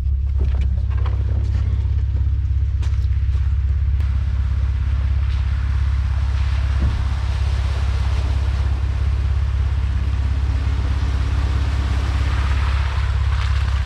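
Jeep Wrangler JK driving slowly on a trail: a steady low rumble of engine and tyres, with a hiss that grows louder over the second half.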